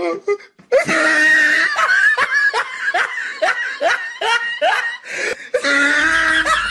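Laughter: a run of short 'ha' sounds about three a second, starting about a second in, with more laughing near the end.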